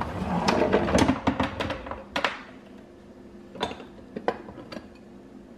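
A kitchen drawer full of crockery rattling open, then a few separate clinks as a ceramic bowl is taken off a stack of bowls and cups.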